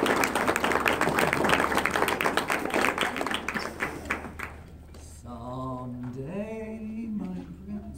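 Audience applauding, fading out after about four and a half seconds. Then a person's voice makes a drawn-out, rising sound.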